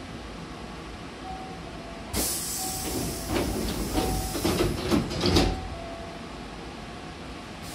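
A Hankyu train's double sliding passenger doors closing. A sudden hiss comes about two seconds in, then rattles and knocks as the doors slide shut, ending in two loud thumps around five seconds in. A short beep repeats about every 1.3 seconds.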